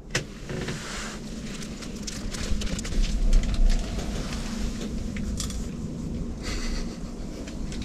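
Close crinkling and rustling of a snack wrapper being handled, with many small crackles and a dull bump about three seconds in.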